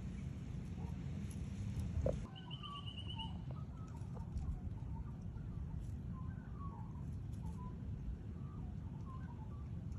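Steady low rumbling noise, with faint scattered bird calls starting about two seconds in and a brief rapid high trill just after.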